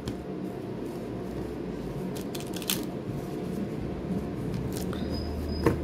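Spanish-suited playing cards being dealt into piles on a crocheted tablecloth, giving a few soft clicks of card on card about two seconds in and again near the end, over a steady low background noise.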